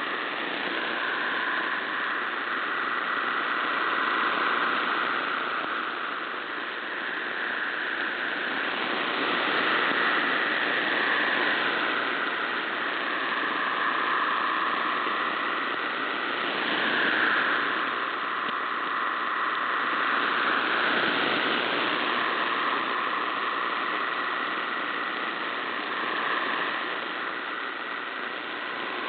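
MT63-1000 digital text signal from a shortwave broadcast, received in AM: a steady hissing block of data tones filling roughly 1 to 2 kHz over shortwave static. The signal swells and fades as the reception wavers.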